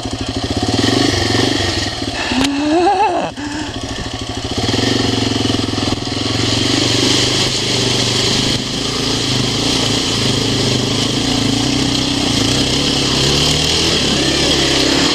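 Yamaha TW200's single-cylinder four-stroke engine running under load through a creek crossing, revving up briefly a couple of seconds in, with a steady hiss of water splashing over the bike.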